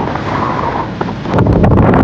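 Wind buffeting the microphone over a steady rushing noise, growing much louder with low rumbling and crackling about one and a half seconds in.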